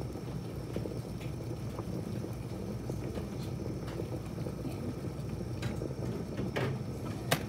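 Electric glass kettle at a full boil, its vinegar-and-water descaling solution bubbling with a steady rumble and faint crackle. A single sharp click near the end.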